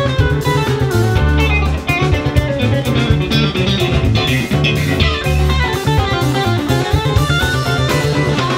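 Live rock band playing an instrumental jam: electric guitar lead lines over bass guitar, drum kit and keyboard.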